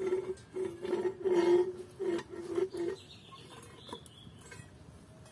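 Bird calls: a run of about six short calls on one steady pitch in the first three seconds, followed by faint high chirping.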